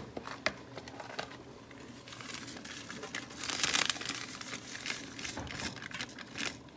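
A packet of Shan tandoori masala crinkling and rustling as it is opened and the spice powder is shaken out over the chicken. Scattered small clicks run through it, with a louder rustle a little past halfway.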